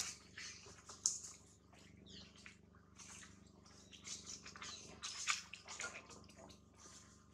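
Macaque giving many short, high-pitched squeaks, with a few falling calls among them.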